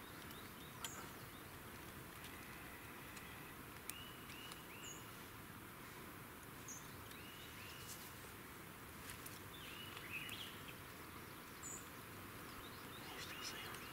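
Faint woodland ambience: small groups of short bird chirps every couple of seconds over a steady insect-like hiss, with a couple of faint clicks.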